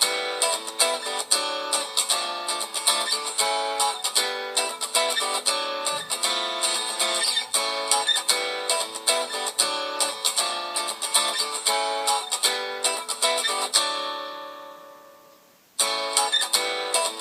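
Samsung Galaxy J1 Ace ringtone: a guitar tune of quick plucked and strummed notes. It fades out near the end, then the music starts up again abruptly.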